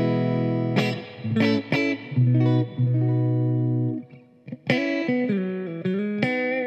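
Squier Telecaster Cabronita electric guitar being played: ringing chords and picked notes, with a brief pause about four seconds in before new chords ring out.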